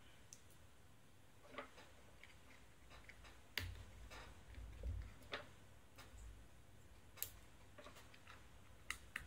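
Faint, irregular clicks and taps of small mold parts and tiny black inserts being handled and fitted together by hand on a wooden tabletop, with the sharpest click about three and a half seconds in.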